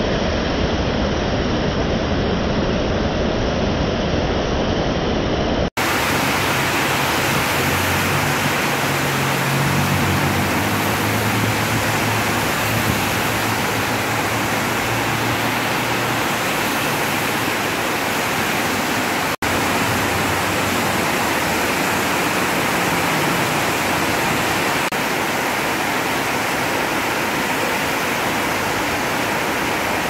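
Heavy rain pouring down in a steady hiss, mixed with the sound of traffic driving on the wet road. The sound breaks off for an instant twice.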